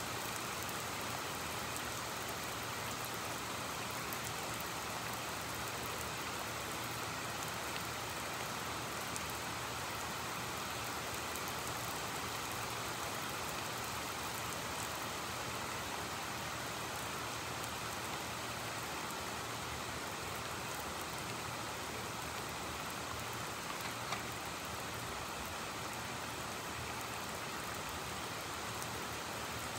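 Heavy rain falling steadily, an even hiss with no thunder, and a single small tick late on.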